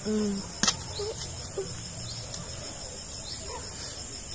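Garden ambience: a steady high insect drone with a few faint, short bird chirps scattered through it. A brief low hum of a voice and a single sharp click come right at the start.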